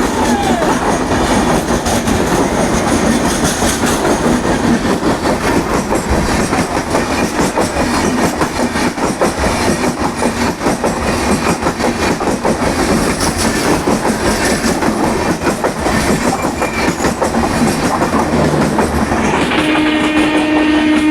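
Passenger train coaches of the Ernakulam–Howrah Antyodaya Express rolling past at speed: a steady loud rumble with wheels clattering over rail joints. Near the end, a steady horn note starts and holds.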